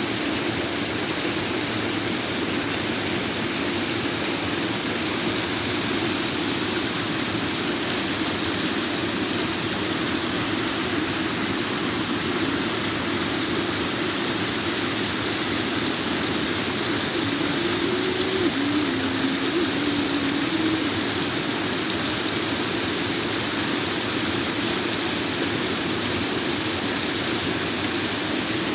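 Steady rush of water from a waterfall, an even continuous roar. A faint, brief wavering tone rises over it about two-thirds of the way through.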